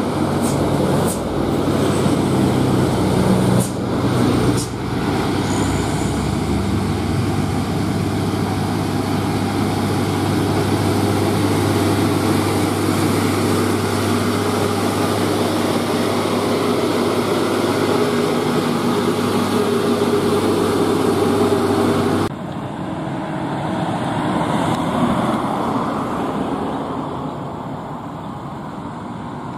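Loaded Mitsubishi Fuso diesel trucks driving past: one truck's engine runs with a steady low drone as it comes up and passes, with a few short clicks near the start. About two-thirds of the way in the sound cuts abruptly to another truck approaching, a little quieter.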